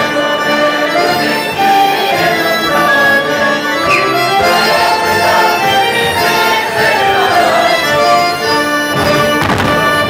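Polish folk dance music playing steadily, accompanying a couples dance on stage.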